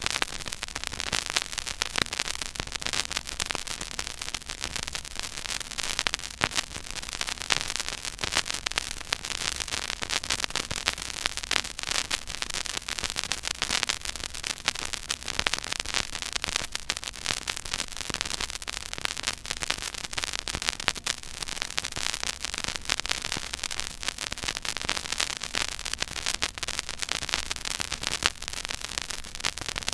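Stylus playing the silent groove of a 12-inch vinyl record at 33⅓ rpm: steady surface noise of dense crackles and small pops over hiss, with a faint low hum underneath.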